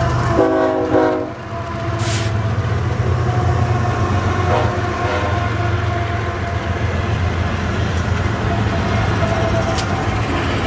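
Several BNSF diesel locomotives running light, passing close by: a short horn blast of about a second near the start, then the steady drone of the diesel engines as the units roll past, with a brief hiss about two seconds in.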